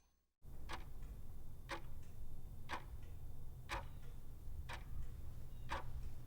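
Clock ticking at one tick a second over a faint, steady low hum.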